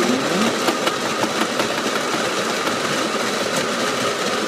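The built-in burr grinder of a Krups KM7000 grind-and-brew coffee maker grinding beans: a steady motor whir with a few sharp clicks in the first second and a half.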